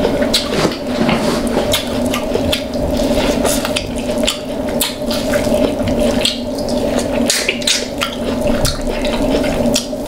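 Close-miked wet chewing and mouth sounds of someone eating buttery seafood, with many small smacks and clicks, over a steady low hum.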